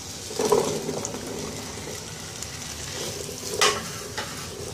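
Cubed raw potatoes tipped into hot oil and fried spice paste, sizzling as they are stirred with a silicone spatula. A clatter comes as the potatoes go in about half a second in, and a sharp knock of the spatula against the pan comes near the end.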